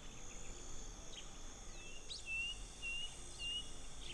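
Wild soundscape: a steady high insect drone with brief bird calls over it, including a falling whistle and then three short whistled notes about two seconds in.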